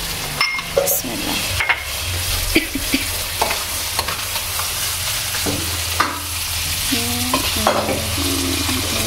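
Black-chickpea chhole sizzling in a frying pan over a gas flame, a steady hiss, with a few scrapes and knocks of the spoon as it is served out into a glass bowl.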